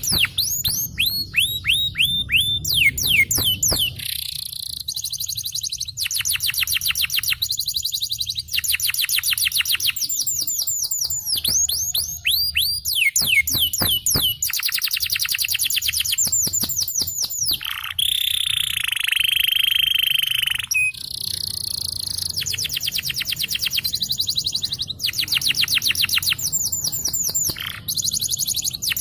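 Canary singing a long rolling song: fast trills of rapidly repeated down-sweeping notes, switching to a new phrase every second or few. About two-thirds of the way through comes a harsher, buzzing phrase.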